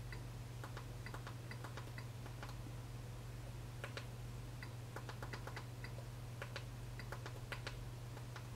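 Small, irregular clicks, a few a second, from the buttons of a remote control being pressed to step through a TV box's settings menu, over a steady low hum.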